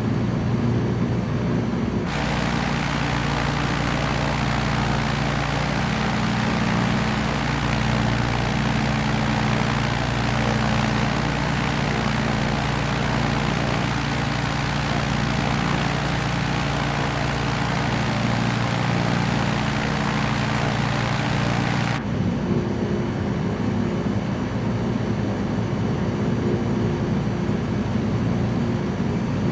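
Light aircraft's piston engine and propeller droning steadily in flight. A loud hiss joins about two seconds in and cuts off abruptly about three-quarters of the way through.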